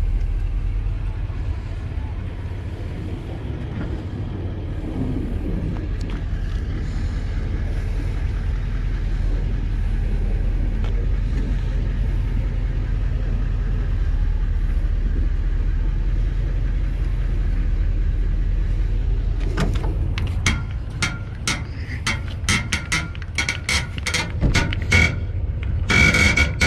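A vehicle engine running with a steady low rumble. From about twenty seconds in, a quick run of knocks and clanks joins it, as the trailer hitch is worked on.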